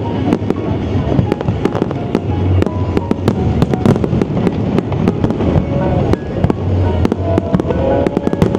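New Year's Eve fireworks show: a dense, continuous barrage of sharp bangs and crackles over a low rumble of booms, with music playing alongside.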